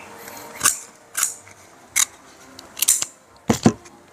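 Kitchen scissors snipping through the spiny shell of a steamed king crab leg: a string of about six sharp, crunchy cuts, the loudest near the end.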